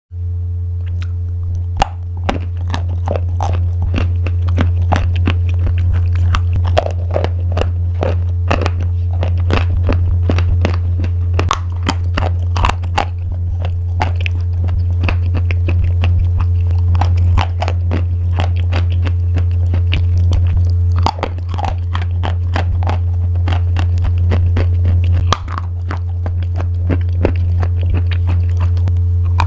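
Crunchy pasta being crunched, a rapid irregular run of sharp crackling crunches, over a steady low hum.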